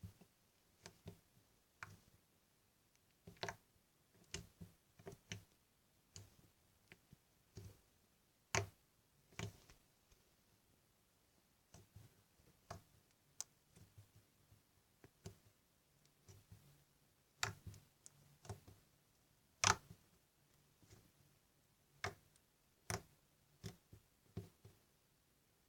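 Homemade slime made with cream being squeezed and worked by hand, giving irregular sharp clicks and pops, a few a second.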